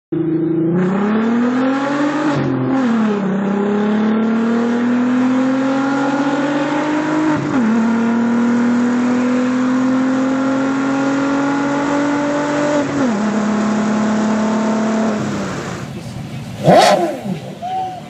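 Straight-piped VR6 engine of an MK4 VW Golf GTI accelerating through the gears, heard from inside the cabin: the exhaust note climbs in pitch and drops at each of three upshifts, then holds steady and fades. Near the end, a Porsche Carrera GT's V10 revs briefly.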